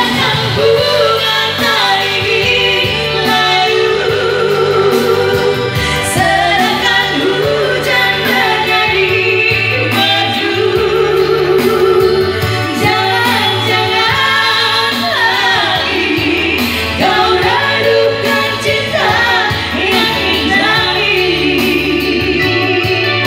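A woman singing into a handheld microphone over backing music with a steady bass line, her held notes wavering with vibrato.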